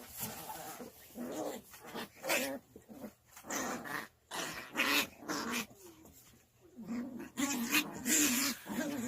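Two puppies growling in repeated short bursts as they play-fight, with scuffling noises in between.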